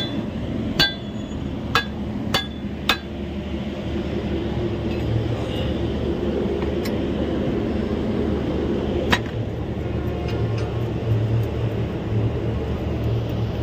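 Sharp metallic clinks of a spanner striking a locomotive sander's steel box and nozzle: four quick strikes in the first three seconds and one more about nine seconds in, over a steady low hum. The nut is very tight and the sander is jammed with wet sand, and the strikes are part of working it free.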